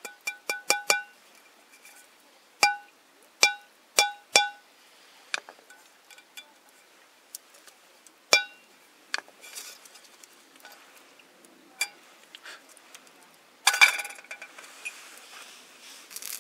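Repeated ringing clinks of metal camp cookware, the same piece struck over and over at one pitch: a quick run of about five in the first second, then single clinks scattered over the next several seconds. A short rustling scrape comes near the end.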